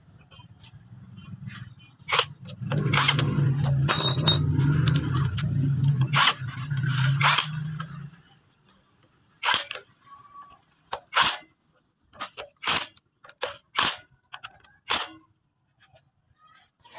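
A cordless power driver runs steadily for several seconds, louder from about three seconds in, while bolts are driven into the motorcycle engine's crankcase, then stops. After it comes a string of about a dozen sharp metallic clicks and taps.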